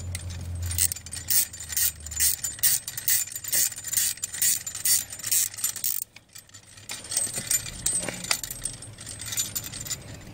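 Metal clicking and clinking as a bolt on a steel fire-extinguisher bracket is screwed in with a 10 mm spanner, about three or four clicks a second, with the bracket rattling. The clicking pauses briefly about six seconds in, then carries on more softly.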